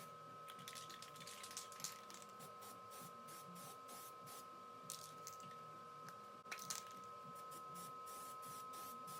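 Near silence: faint room tone with a steady hum and scattered light clicks and scrapes.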